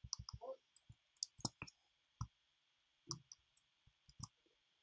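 Faint, irregular clicking of a computer mouse and keyboard, about a dozen sharp clicks.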